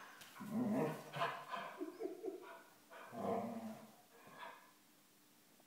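Large black curly-coated dog making play noises: a string of short low growls and soft barks, loudest about a second in and again about three seconds in, dying away after about four and a half seconds.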